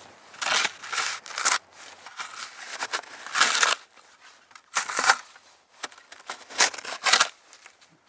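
A small snow shovel scooping and tossing deep, loose powder snow in about eight short, crunchy bursts at an irregular pace, while digging out a buried tent guyline.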